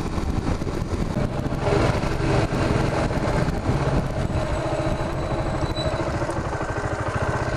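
Suzuki GZ250 cruiser's single-cylinder engine running while ridden, settling into an even, slow pulse in the second half as the bike moves at low speed.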